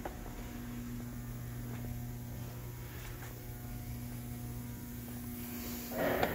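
Steady low electrical mains hum with a fainter higher tone above it. A brief noisy rustle or clatter comes near the end.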